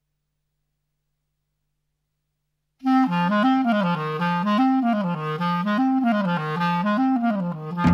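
Near silence for about three seconds, then a clarinet comes in suddenly, playing a repeating figure of low notes that rock up and down.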